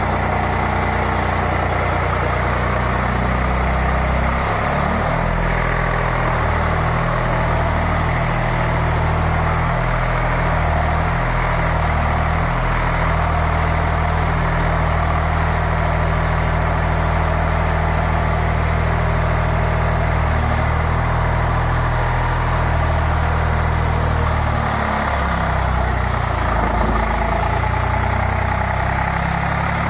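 Three-cylinder air-cooled Eicher diesel engine running a generator steadily under a water load test. The engine note wavers briefly about four seconds in and again near the end.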